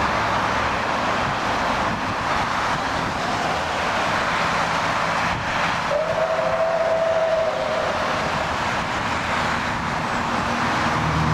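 Steady noise of road traffic passing close by, with a Soviet L-class steam locomotive approaching. About six seconds in, a steam whistle sounds once for about two seconds.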